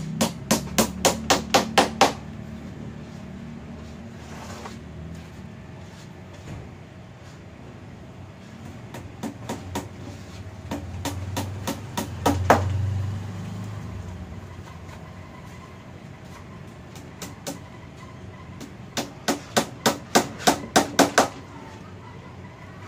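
Claw hammer driving nails into the edge of a plywood panel: a quick run of about eight strikes at about four a second, a few scattered blows midway, and another run of about nine strikes near the end.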